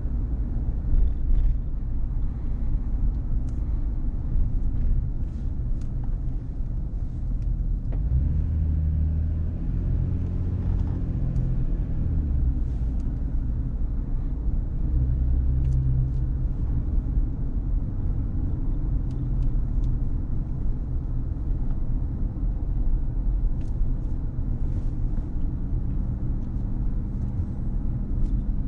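Car driving on city streets: a steady low rumble of road and engine noise. The engine note rises for a few seconds about a third of the way in, and again briefly around the middle.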